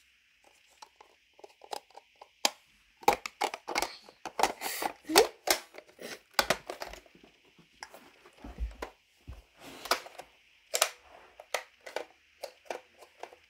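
Hard plastic Nerf Stryfe blaster being handled and turned over: an irregular run of clicks, knocks and rattles, thickest in the middle and again about ten seconds in, with a few dull thuds, over a faint steady hiss.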